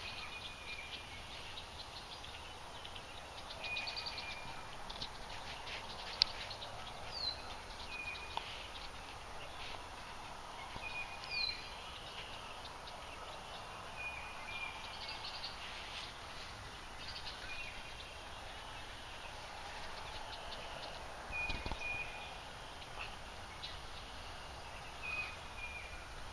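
Songbirds calling in spring woodland: a short high note repeated every two or three seconds, with a few falling whistles, over a steady outdoor hiss.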